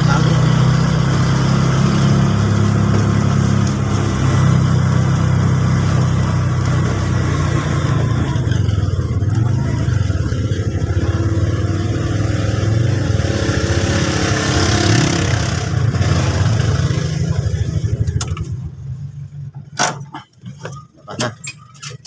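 Motor vehicle engine and road noise heard from inside a small open-sided passenger cab while riding, a steady low drone. It drops away about eighteen seconds in, leaving scattered clicks and knocks.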